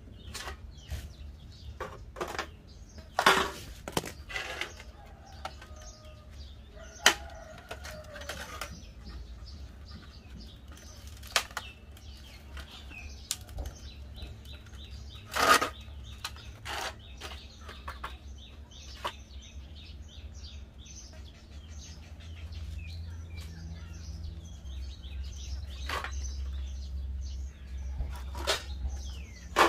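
Scattered sharp clicks and knocks of metal hand tools and the parts of an old portable gas stove being handled and fitted together, with birds calling in the background.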